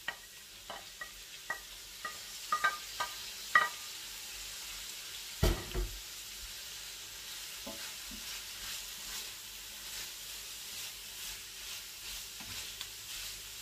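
Shredded cabbage sizzling in a frying pan over onions, a steady hiss. Wooden spatula taps and scrapes as the cabbage is pushed off a plate in the first few seconds, a single thump about five and a half seconds in, and lighter stirring taps near the end.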